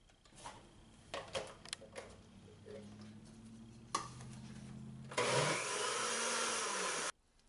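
Countertop blender blending simmered hot pepper sauce for a second time. A few clicks and knocks as the lid is fitted are followed by a low motor hum. About five seconds in, the blender runs loud, then stops abruptly.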